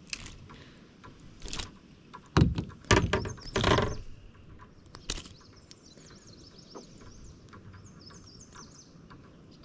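Knocks and rustling of gear being handled, with a cluster of loud thumps about two and a half to four seconds in and a single knock about five seconds in; faint short high chirps follow.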